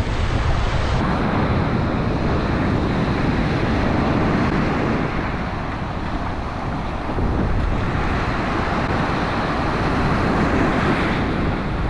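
Surf breaking and washing up a sandy beach, with wind buffeting the microphone; the wash swells louder about seven seconds in.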